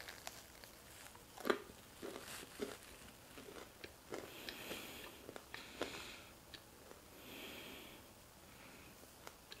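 A person biting into a fried chicken wing and chewing it, with irregular soft crunches and mouth clicks over the first six seconds and two short breathy hisses, one near the middle and one later on.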